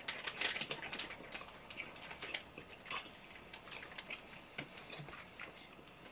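Mouth sounds of people chewing soft gummy sweets: faint irregular clicks and smacks, several a second.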